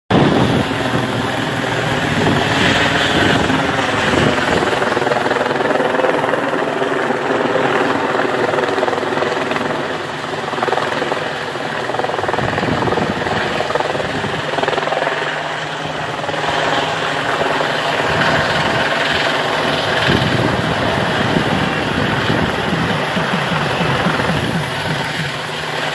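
Helicopter running steadily, its rotor beating fast alongside the engine's steady drone.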